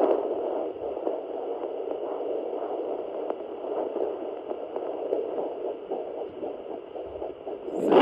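Handheld pocket fetal Doppler's speaker giving a steady whooshing hiss with a pulsing heartbeat, its probe held on a pregnant Labrador's belly.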